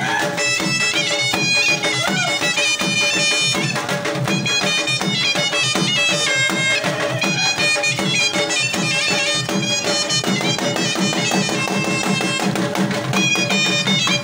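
Surnai, the Pashtun reed shawm, playing a loud, reedy folk dance melody over a steady dhol drum beat.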